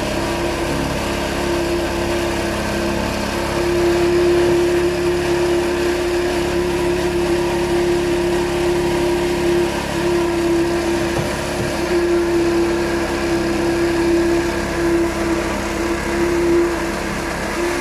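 Small petrol engine of a concrete vibrator running steadily under load, driving a flexible-shaft poker that is being worked through wet concrete to compact it. It is a continuous hum with a strong high note whose loudness wavers a little.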